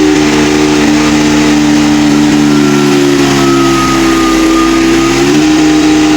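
Kubota 15 kVA high-speed diesel generator running loud and steady at full speed. Its pitch sags slightly about three seconds in and comes back up a little after five seconds.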